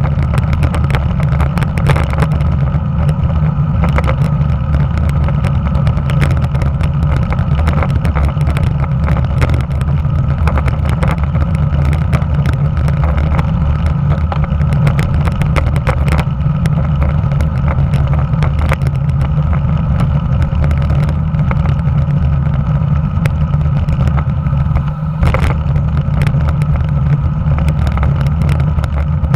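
Wind rushing over a handlebar-mounted camera's microphone on a moving road bike, a steady heavy rumble, with tyre and road noise and frequent small knocks and rattles from the cracked asphalt.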